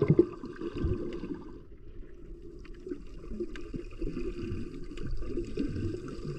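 Muffled gurgling and sloshing of sea water picked up by a camera held underwater as a person swims, loudest in the first second.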